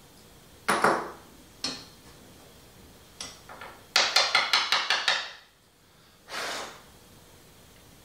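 Small metal hand tools knocking and clinking on a wooden workbench: two sharp knocks, then a quick rattling run of about eight clicks a second as a T-handle tap wrench is set down, and a short hiss near the end.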